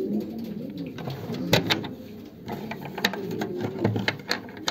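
Domestic pigeons cooing, several low wavering coos overlapping, with a few sharp clicks or knocks, the loudest about a second and a half in.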